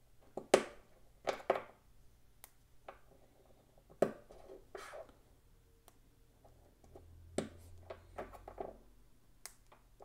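Small plastic plugs being handled and pressed into the bearing hubs of a pair of Tacx jockey wheels: scattered light clicks and taps of plastic against plastic and the tabletop, with faint rustling between them.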